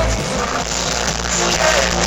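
Live pop-electronic concert music from a beach stage, heard loud and distorted through a handheld recording, with crowd noise mixed in.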